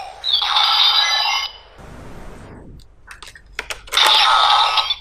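Electronic sound effects from a Kamen Rider Diend toy gun played through its small speaker: a loud electronic chime from about a quarter second in lasting over a second, a lower falling whoosh around two seconds, then a few sharp clicks and another sustained electronic tone near the end.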